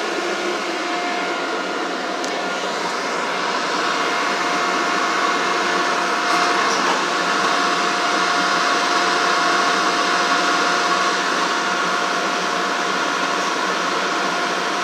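Interior of a CTA 3200-series rapid-transit railcar: a steady fan-like hum of the car's equipment as the train pulls into a station and comes to a stop, with a thin steady whine over the first half that stops around the middle.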